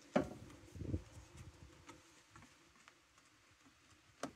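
Hands working at a grain bin's sheet-metal discharge fitting: a sharp knock, about a second of scraping and rustling, then scattered light ticks and a sharp click near the end.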